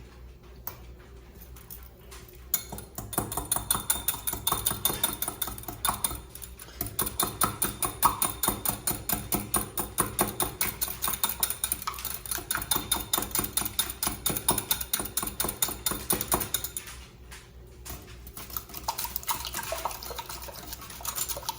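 Duck eggs being beaten in a bowl: a utensil clinking rapidly and evenly against the bowl, about four or five strokes a second, with a pause near the end before it starts again.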